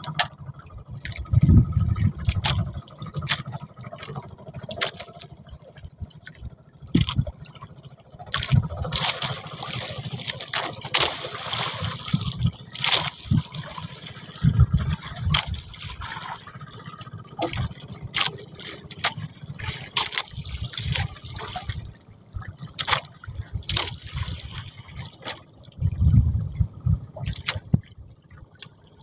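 Seawater splashing and trickling around a small fishing boat, broken by many irregular sharp knocks and clatters.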